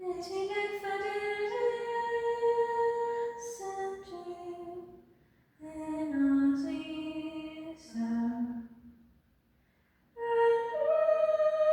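A woman singing unaccompanied in slow, held notes, in three phrases with short breaths between them.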